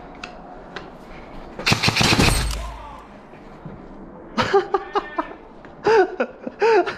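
An airsoft rifle fires one rapid full-auto burst of about a second, a little under two seconds in. Short shouts follow later.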